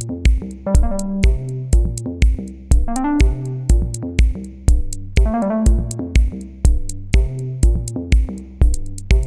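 Electronic background music with a steady drum-machine beat and synthesizer melody.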